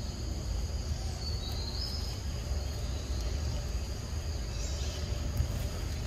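Steady high-pitched insect chorus, two thin ringing tones held throughout, over a low rumble, with a short rising chirp twice.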